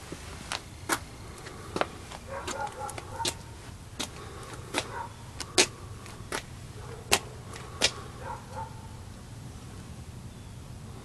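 Footsteps on a paved driveway, a sharp step about every half to three-quarters of a second, stopping after about eight seconds, over a low steady rumble.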